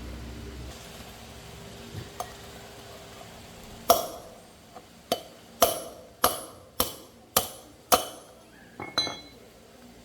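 A series of about eight sharp strikes of a hammer on metal, roughly one every half second to second, each with a short ring, after a couple of lighter knocks.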